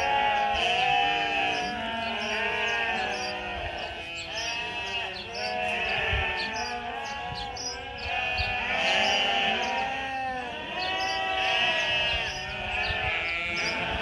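A large flock of sheep bleating, many calls overlapping one another without a break.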